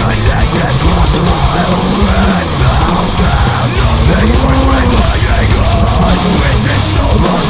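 Loud heavy-metal-style music soundtrack with drums.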